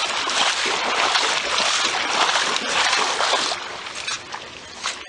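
Wading through floodwater: legs sloshing and splashing with each step, which stops about three and a half seconds in and leaves a few faint splashes.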